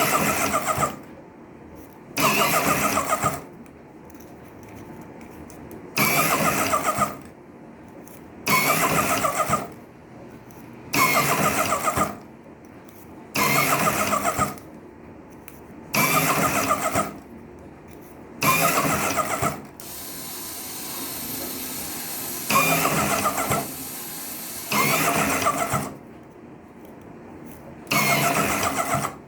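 Electric slim cigarette-rolling machine's motor running in repeated cycles: a loud mechanical whir of about a second, roughly every two and a half seconds, with a fainter hum between.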